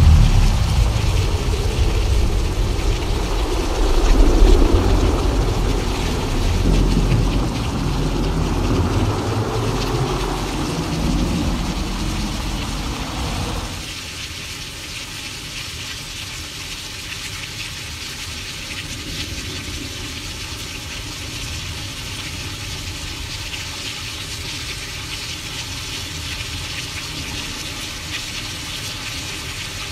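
Simulated thunderstorm: a long roll of thunder rumbles and swells several times over steady rain hiss, then cuts off abruptly about fourteen seconds in, leaving only the steady rain.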